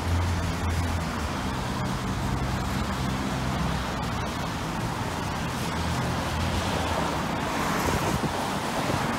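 Street traffic: a steady wash of passing vehicles, with a low engine hum over the first few seconds that fades out, and the noise swelling again near the end.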